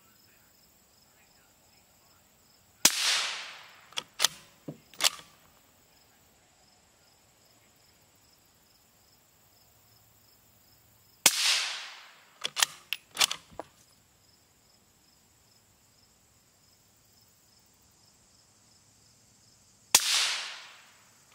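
Three suppressed rifle shots, 5.56 mm M855A1 from a 22-inch barrel, about eight seconds apart. Each shot fades out over about a second and is followed by a few sharp clicks.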